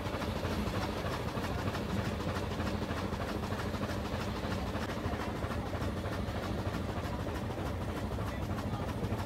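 Cog railway train running, a steady rumble with no break or change.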